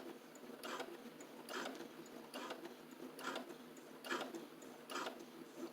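Sewing machine stitching slowly over a purse strap, back-stitching it: faint, evenly spaced bursts a little more than one a second.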